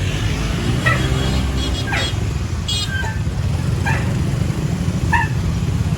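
Steady low rumble of heavy road traffic, a bus engine among it, with a short high-pitched call about once a second.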